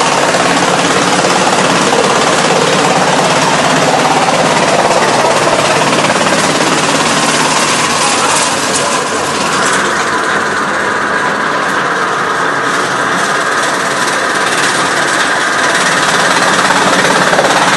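Blower-type chaff cutter running loud as dry stalks are fed in: a dense, continuous chopping-and-blowing machine noise. About halfway the hiss in the top end thins and a steady whine comes through, and the full sound returns near the end.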